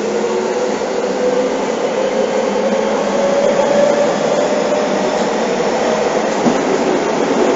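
Seibu 6000 series electric train running through the subway tunnel, heard from inside the car: steady running noise of wheels on rails. Through it, a motor whine rises slowly in pitch for about four seconds, then fades.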